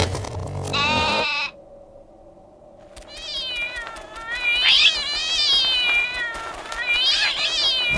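A low rumble that stops about a second and a half in, then a cartoon character's meow-like cries, several in a row, each warbling up and down in pitch.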